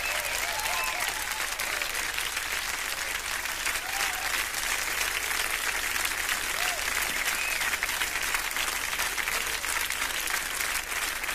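Concert audience applauding steadily, with a few scattered voices calling out in the crowd.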